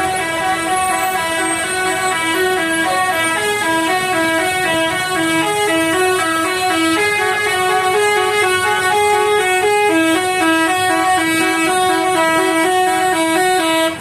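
A bus's telolet horn, a set of electric horn trumpets, playing a quick stepping melody of several notes sounding together. It is loud and unbroken, then stops abruptly.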